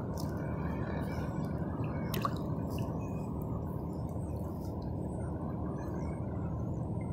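Sea water lapping and dripping around a sit-on-top kayak, with scattered small drips and one sharper splash about two seconds in, over a steady low rush.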